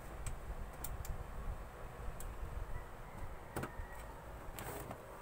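Scattered clicks and light knocks as a part is pushed and fitted back onto a Rakk Anyag PC case, its bottom edge not quite seating at first.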